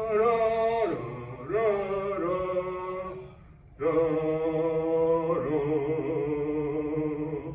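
A singing voice holding long, wavering notes in three phrases, the longest starting about four seconds in.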